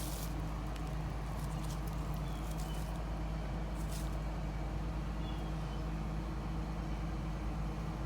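CAT excavator's diesel engine running steadily, with a few faint clicks.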